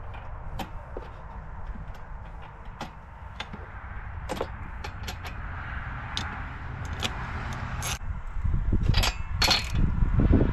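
Ratchet and spark-plug socket refitting the spark plugs in a Yamaha Phaser II two-stroke engine: scattered metallic clicks and clinks, busier and louder near the end.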